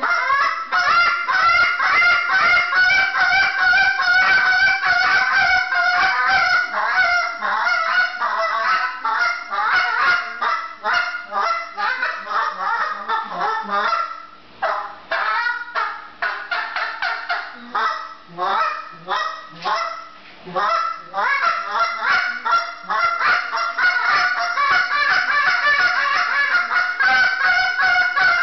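Handheld goose call blown in a calling routine: a near-continuous run of rapid honks and clucks, loosening in the middle into shorter separated notes with brief pauses and a few lower notes, then picking up to a fast run again.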